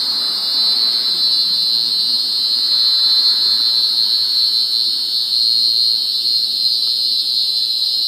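A chorus of cicadas singing in the trees: a loud, steady, high-pitched electrical drone that never breaks.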